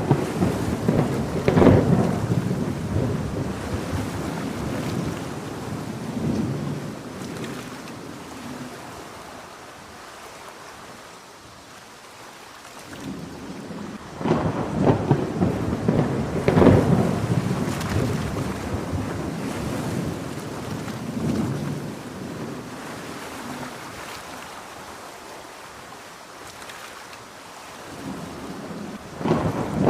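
Steady heavy rain with thunder rolling twice. Each rumble builds suddenly, crackles and booms for a few seconds, then fades slowly over about ten seconds; the second starts about halfway through.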